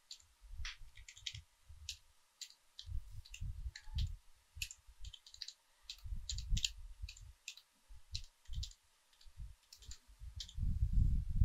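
Typing on a computer keyboard: a run of separate key clicks at an uneven pace.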